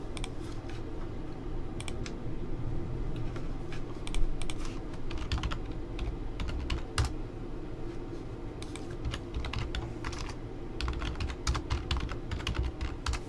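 Typing on a computer keyboard: irregular runs of key clicks, thickest in the last few seconds, over a steady low room hum.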